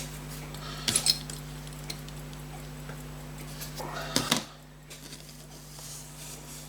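A few light metallic clicks of small pocket-watch parts being handled on the bench, about a second in, over a steady low electrical hum.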